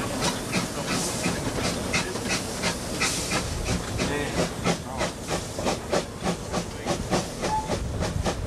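Queensland Railways A10 class steam locomotive No. 6 running, heard from its footplate: a steady steam hiss over an even rhythm of beats, about three a second.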